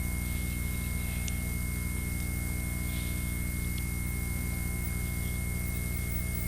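Steady electrical mains hum with a faint high-pitched whine and light hiss, unchanging throughout.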